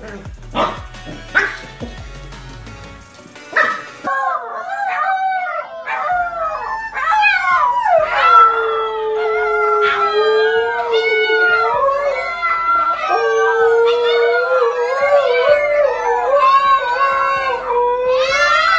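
A pack of husky puppies and an adult husky howling together, many overlapping howls gliding up and down in pitch, starting about four seconds in and carrying on loudly. Before that, background music with a few short sharp sounds.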